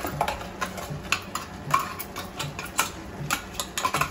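Irregular light clicks and taps of kitchen utensils, a spoon and steel vessels being handled, several a second.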